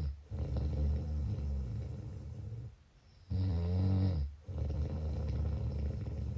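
Snoring, two breaths: each starts with a droning snore whose pitch wavers and falls, then runs into a longer rough, rattling stretch. There is a short pause about three seconds in.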